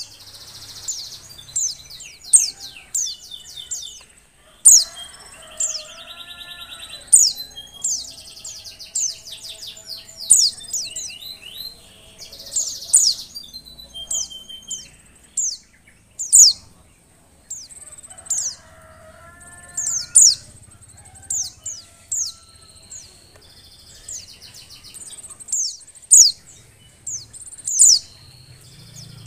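Female white-eye (pleci) calling in breeding condition: a long run of short, sharp, high chirps, each sweeping downward, about one a second. Lower wavering calls come in twice, about a fifth of the way in and again about two-thirds in.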